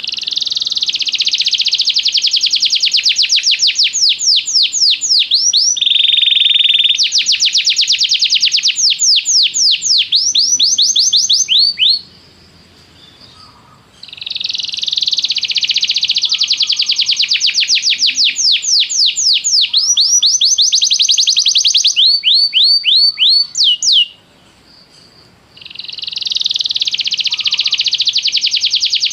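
Domestic canary singing long phrases of fast repeated trilling notes, high-pitched and loud. It breaks off twice for a second or two and starts up again.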